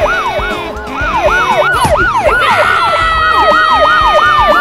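Police siren in a fast yelp, about three rising-and-falling sweeps a second, with fainter siren sweeps overlapping it. A little over two seconds in there is a short noisy burst, and a steady tone sets in that slides slowly lower.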